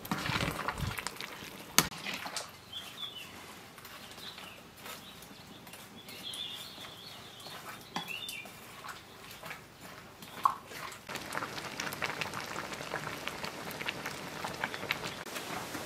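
A metal ladle stirring vegetables in a large metal cooking pot, with a sharp clink against the pot about two seconds in and another near the ten-second mark. Birds chirp now and then in the background, and in the last few seconds the simmering curry gives a dense, light crackle.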